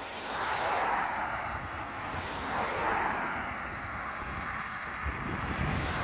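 ACA P-50 rotating outdoor warning siren sounding a steady alert tone, swelling and fading about every two to three seconds as its horn sweeps around.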